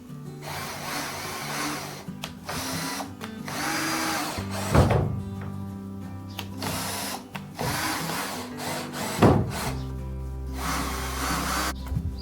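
A power tool run in repeated bursts of a second or two, working wood, over background music with low sustained notes. Two sharp knocks stand out, about five and nine seconds in.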